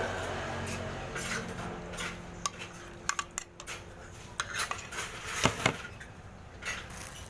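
Metal spoon and fork clinking and scraping against a ceramic soup bowl while eating noodle soup, a scattered run of sharp clinks with the loudest pair about five and a half seconds in.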